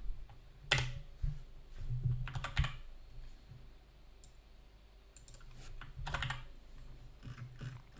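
A few scattered computer keyboard keystrokes, separate sharp clicks a second or two apart, over a faint low hum.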